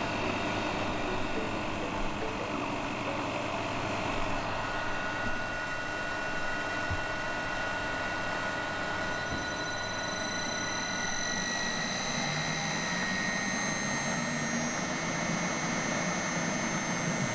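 Makino Sangyo My Mill dry cooled rice pulverizer unit running with a steady mechanical hum. A set of high-pitched whining tones joins about nine seconds in.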